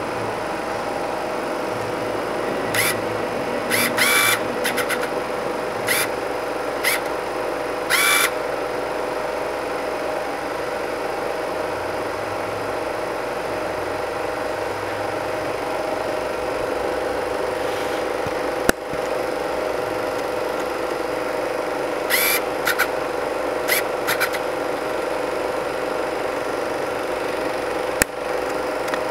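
Super 8 film projector running: a steady mechanical hum, with short high squeals in clusters a few seconds in and again about two-thirds of the way through, and two sharp clicks, one a little past midway and one near the end.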